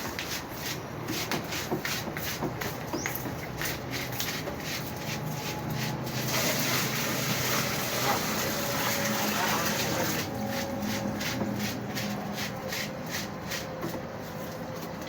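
Panasonic fully automatic washing machine running, with repeated small clicks and a rush of water from about six to ten seconds in.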